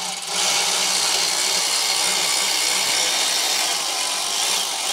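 Cordless electric ratchet running steadily without a break, spinning out a loosened mounting bolt of the vacuum pump on a 7.3-litre IDI diesel engine.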